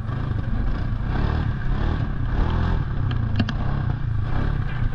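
Polaris Sportsman ATV engine running steadily as the quad drives over rough ground, with a couple of sharp clacks about three and a half seconds in.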